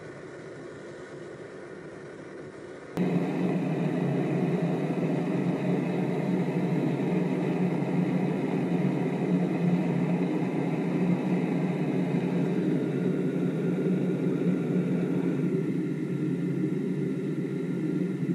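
Metal-melting furnace running with aluminium casings in its crucible: a steady mechanical rush, markedly louder from about three seconds in.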